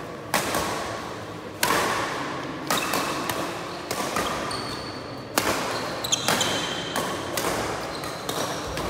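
Badminton rackets striking a shuttlecock in a fast doubles rally: about a dozen sharp smacks, coming two or three a second at the quickest, each echoing in the hall. Short shoe squeaks on the court floor come in the middle.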